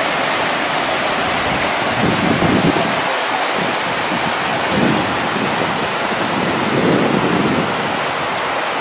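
Waterfall: a steady, heavy rush of water pouring over rock into a pool, swelling a little a few times.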